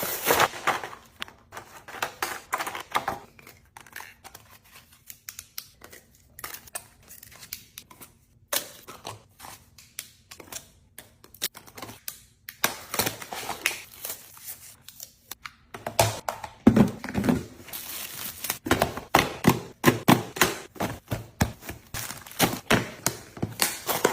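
Rustling and crinkling of packaging, with taps and thunks of items being handled and set down, irregular and busiest near the start and in the last third.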